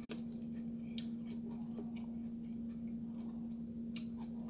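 Soft eating sounds: a few scattered clicks from chewing and mouth smacks and a fork against a plate, over a steady low hum.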